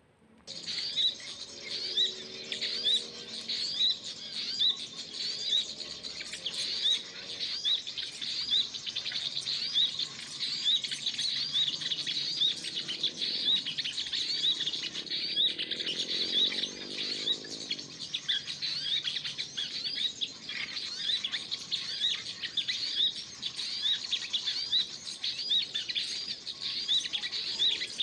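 Small bird's high chirping call repeated in a fast, even series, about two or three chirps a second, in the bird-lure setting of a sogok ontong trapping session.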